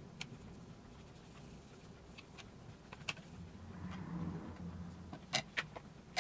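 Thin MDF and card kit pieces handled on a cutting mat: a brief soft sliding rustle, then a few light taps and clicks as boards are picked up and set down, the sharpest two close together about five seconds in.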